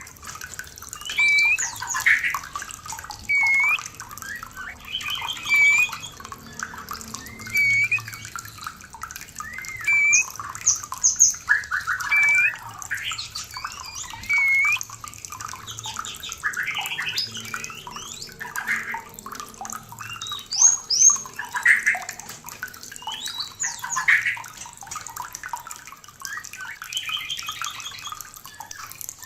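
White-rumped shama (murai batu) in breeding condition calling and singing: short upturned whistles, rapid trills and harsh chatters repeated every second or two, over a steady background of running water.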